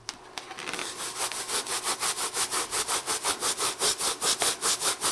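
A rubber balloon rubbed quickly back and forth over a cat's fur to charge it with static: even scratchy strokes, about five a second, growing stronger over the first second.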